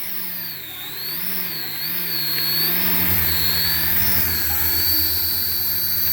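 Small electric motor of a toy remote-control model whining, its pitch rising and falling about once a second as the throttle is worked, with a low buzz joining about three seconds in.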